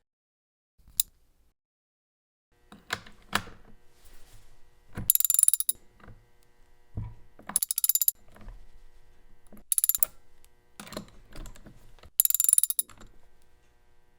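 A socket wrench ratcheting in four quick bursts of rapid clicks while tightening the chainsaw's chain guard fasteners, with knocks of the socket and tool between the bursts.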